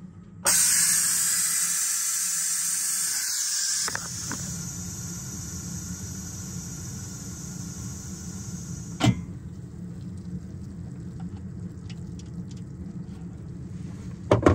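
Electric pressure cooker venting through its steam-release valve at the end of cooking. A loud hiss of escaping steam starts suddenly, eases after about three seconds and goes on more softly until a sharp click about nine seconds in, with a low steady hum underneath.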